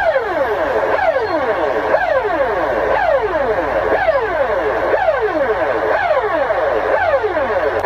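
Electronic emergency-alert alarm: layered tones that each sweep sharply downward in pitch, a fresh set starting about once a second, over a low steady hum.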